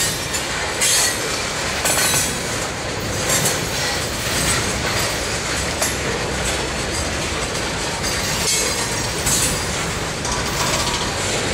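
Freight train of tank cars and boxcars rolling past at close range: steady rail rumble with wheel clacks over the rail joints about once a second.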